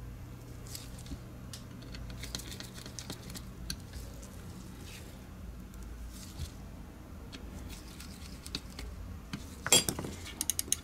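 Faint, scattered light taps and ticks of the Logitech G Pro X Superlight's plastic shell parts being handled. Near the end comes a louder knock and then a fast run of sharp ticks as the top shell is picked up.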